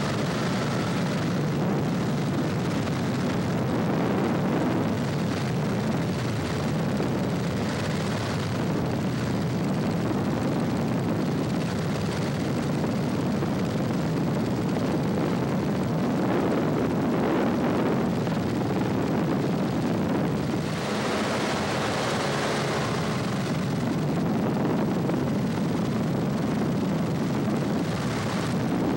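Cabin noise of a Cessna 150 in cruise: the four-cylinder Continental O-200 engine and propeller droning steadily, with air rushing past the airframe. The high hiss of the airflow grows louder for a few seconds about two-thirds of the way through.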